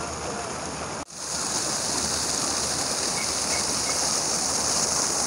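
Water fountain jets falling and splashing into the basin: a steady rushing hiss that gets louder from about a second in.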